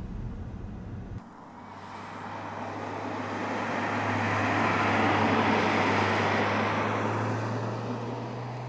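A low rumble inside the car's cabin for about the first second. Then a Mercedes-Benz CLS Shooting Brake drives past: its steady engine hum and tyre noise swell to a peak about halfway through and fade away.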